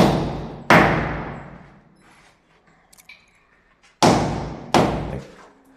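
A hammer strikes the cracked concrete edge of a stair beam, chipping off plaster and concrete to expose the reinforcing steel. There are four sharp blows in two pairs: one right at the start and another under a second later, then two more about four seconds in. Each blow rings out with an echo in the stairwell.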